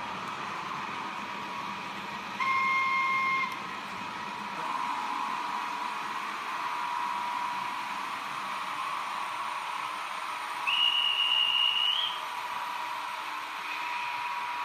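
Model locomotive's sound-decoder horn sounding twice: a lower blast of about a second, about two and a half seconds in, then a higher blast of just over a second, about eleven seconds in, rising slightly at its end. A steady electric whine runs underneath.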